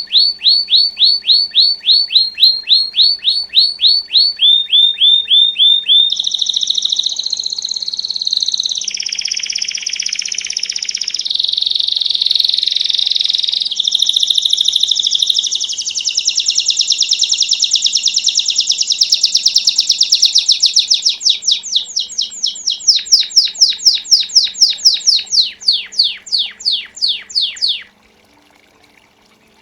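Domestic canary (Belgian canary) singing a long, unbroken 'campainha' bell-type song, the kind used to train young canaries and warm up others. Runs of quick falling notes alternate with fast trills, the pattern changing every few seconds, and the song stops suddenly about two seconds before the end.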